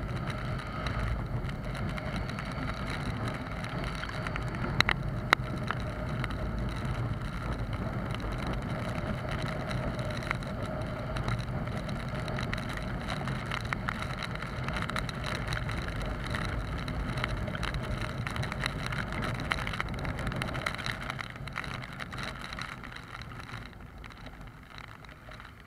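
Honda CBR250R's single-cylinder engine on its stock exhaust running steadily while riding, mixed with rain and wet-road hiss. Two sharp ticks about five seconds in, and the sound fades down near the end.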